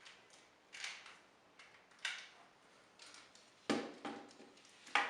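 Five or so short clicks and knocks of hard plastic as a Power Rangers Megazord toy is handled and its Dino Charger piece is pulled from the beak; the loudest knocks come in the last couple of seconds.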